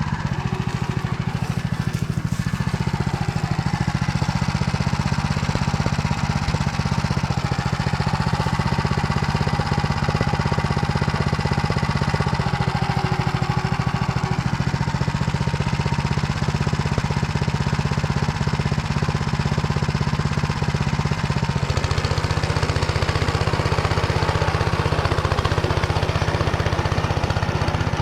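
Engine running steadily under load as it drives a Motor Sich rotary tiller through stubble, with a low even hum; about 21 seconds in the engine note drops slightly.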